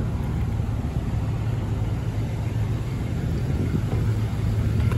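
A car engine idling steadily with a low rumble.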